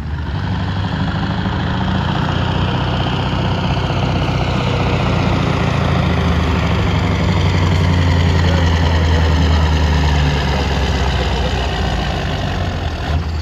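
Mack cab-over truck's diesel engine running under heavy load as it drags a weighted pulling sled in a truck pull. A deep, steady engine note that grows louder toward the middle and eases a little near the end.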